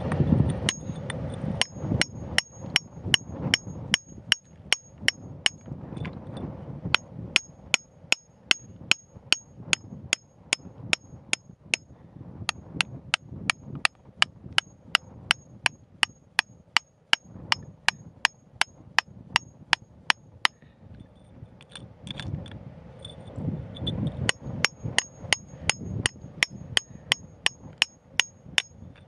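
Hand hammer striking a steel point chisel to chip rock, about three sharp strikes a second with a metallic ring. It stops briefly a few times, with a longer break a little past two-thirds of the way through.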